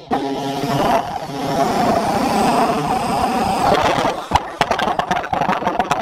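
Electric drill running steadily at one pitch, its bit boring a hole through a Magic 8 Ball to drain the liquid inside. A sharp knock comes a little over four seconds in, followed by a few clicks.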